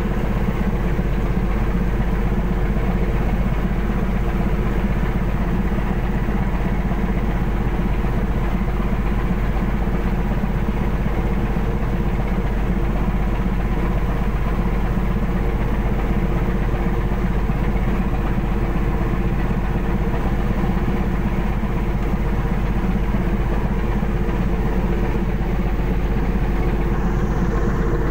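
Fishing vessel's diesel engine running steadily: a deep, unbroken hum with several held tones above it, level and unchanging throughout.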